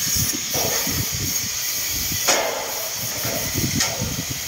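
Wind buffeting the phone's microphone, rumbling unevenly over a steady hiss, with two sharp knocks about two and a quarter and nearly four seconds in.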